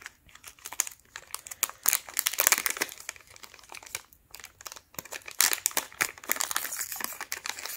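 Foil booster pack of trading cards crinkling in the hands as it is squeezed and worked open at the top, in irregular bursts of crackles with a short lull about halfway.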